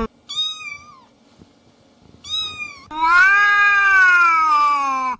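Cat meowing: two short, high meows, then a long, lower-pitched drawn-out meow that rises slightly and slowly falls away.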